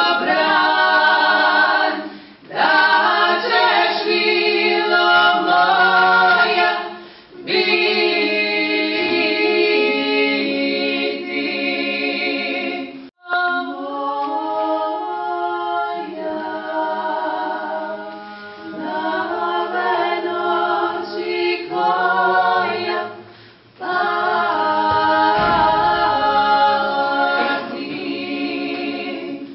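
A female klapa group singing Dalmatian a cappella, several voices in sustained close harmony. The song goes in long phrases with short breaks for breath between them.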